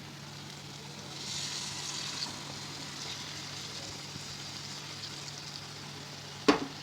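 Onion, tomato and spice masala sizzling in a pan as the chicken goes in. The hiss swells for about a second, a little over a second in. One sharp knock comes near the end.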